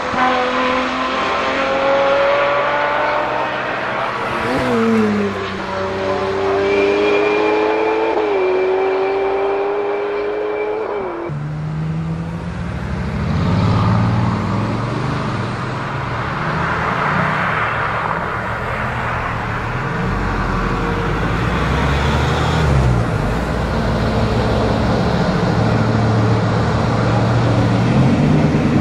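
A Ferrari V12 engine at high revs whose pitch jumps up sharply and then slides down, three times, as the car drives past. About eleven seconds in it cuts to the lower, deeper rumble of a Bugatti Veyron's W16 engine at low speed, rising and falling as it is revved and pulls away.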